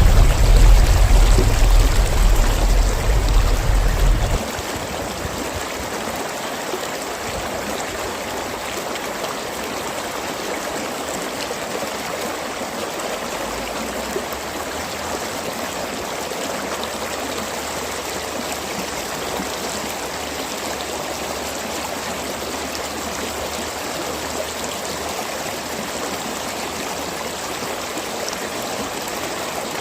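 Mountain stream flowing and gurgling steadily. Over its first few seconds a loud, deep rumble sits beneath the water, then cuts off suddenly about four seconds in.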